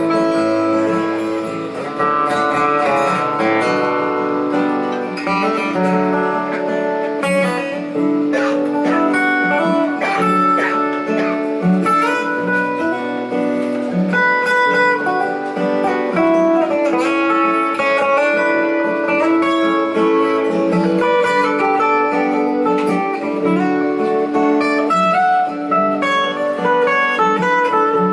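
Acoustic guitar instrumental break: a quickly picked melody of many short notes over held chords, with no singing.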